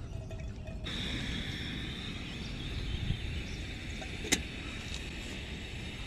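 Steady high-pitched outdoor hiss, with one sharp metallic click about four seconds in as the lid is set on a small camping kettle sitting on a canister gas stove.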